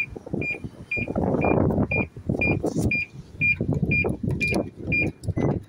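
A car's electronic warning chime beeping at one steady pitch about twice a second, stopping about five seconds in, over loud, uneven rumbling noise.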